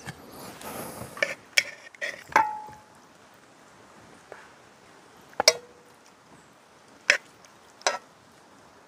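Metal cookware clinking: a quick run of four sharp knocks about a second in, then three more spaced a second or two apart. Two of them leave a short metallic ring.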